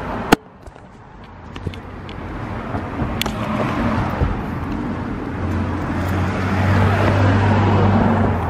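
A car driving past, its engine and tyre noise growing steadily louder over several seconds, with a low engine hum coming in about halfway through. A sharp click just at the start.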